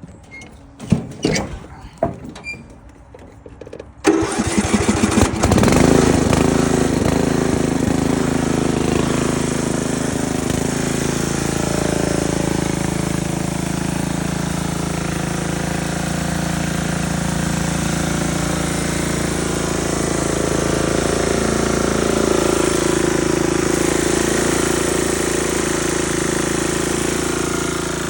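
A few clicks and knocks, then about four seconds in a lawn mower engine starts up, catching after a moment of uneven firing, and settles into a steady run.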